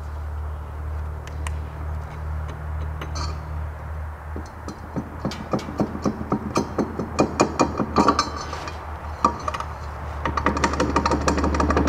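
Metal tool clicks and taps at a mower-deck spindle pulley, about four a second and getting louder, over a steady low hum. Near the end a rapid, steady mechanical rattle sets in.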